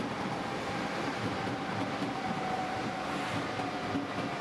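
Two ÖBB Class 1116 Taurus electric locomotives pulling away slowly with a heavy train: a low rumble with a faint steady electric whine from their traction equipment.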